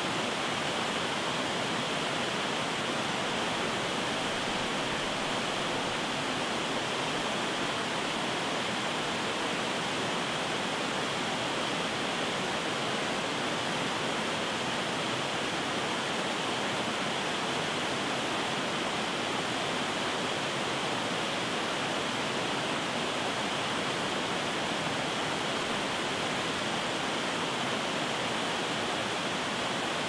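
Waterfall pouring over a rock ledge into a pool: a steady, unbroken rush of falling water.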